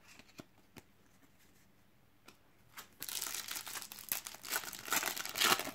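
A foil trading-card booster pack (Panini Adrenalyn XL) being torn open, crinkling and rustling for about three seconds, starting about three seconds in. Before that, a few faint clicks of cards being laid down on the table.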